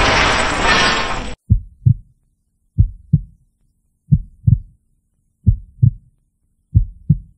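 A loud, noisy sound cuts off abruptly about a second and a half in. A heartbeat sound effect follows: five slow double thumps, lub-dub, about one every 1.3 seconds.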